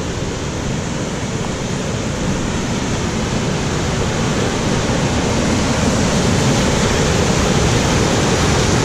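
Waterfall: a steady rush of white water pouring over rock ledges, growing slightly louder toward the end.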